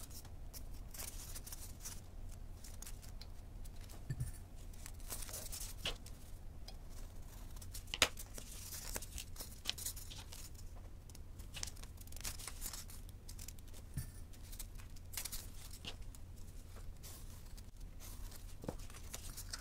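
Soft handling noises of a cloth tape measure, pins and a ballpoint pen against a smooth foam disc: scattered light scrapes, rustles and small clicks, the sharpest click about eight seconds in.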